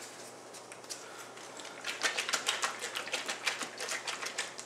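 A 2-liter plastic soda bottle of homemade cola being shaken and tipped to mix in caramel coloring. From about two seconds in, it gives a rapid run of clicks and sloshing rattles.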